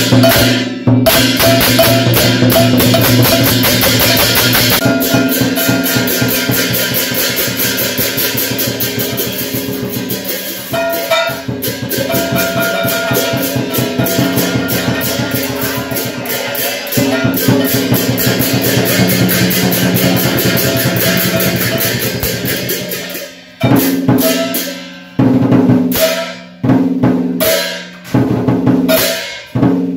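Lion-dance drumming: a fast, unbroken drum roll that breaks into short separate bursts with brief pauses in the last few seconds.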